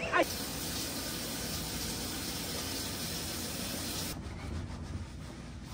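Steady hiss of small waves washing onto the sand, cutting off abruptly about four seconds in and leaving a quieter low background.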